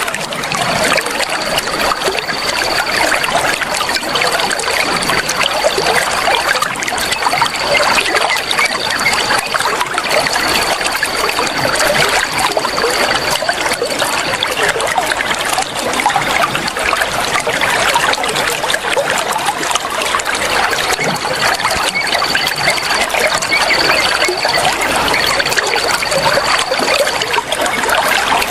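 Water flowing and trickling in a steady stream. A thin steady high tone runs over it in long stretches, for about the first half and again near the end.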